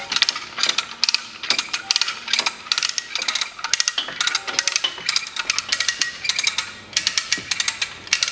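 Hand-cranked cable come-along ratcheting: the pawl clicks in quick bursts, about two a second, with each pump of the handle as it takes up tension on a lifting line.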